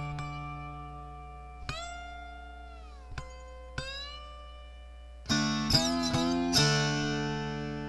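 Three-string cigar box guitar tuned D-A-D, played through an amp on its piezo pickup. Single plucked notes ring out and slide up and down in pitch, and a quick run of several plucked notes comes near the end.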